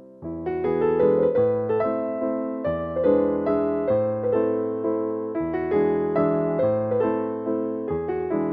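Background music: gentle piano playing a flowing phrase of struck notes that ring and fade, picking up fuller just after the start.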